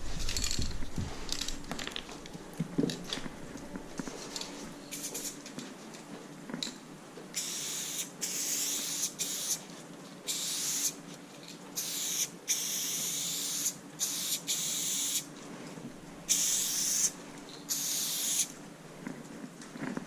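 Aerosol spray paint can hissing in short bursts as a graffiti outline is sprayed. Faint thin hisses come first, then from about seven seconds in roughly ten louder hisses, each a second or less.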